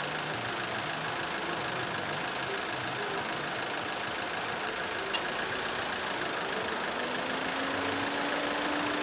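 Street noise dominated by idling vehicle engines, a steady hum. A single short click about five seconds in, and a low engine note slowly rising in pitch near the end.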